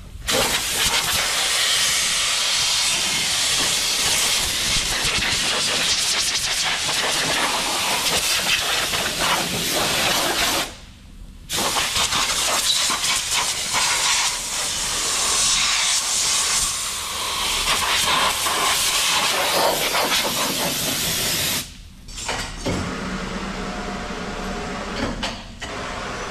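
Pressure washer spraying water onto a steel bulldozer equalizer bar, a steady loud hiss. It stops briefly about 11 seconds in and again about 22 seconds in, and after the second stop it goes on more quietly.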